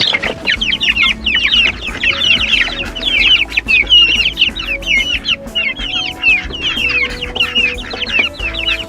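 A brood of young chicks peeping without pause, many short, high, falling peeps overlapping one another.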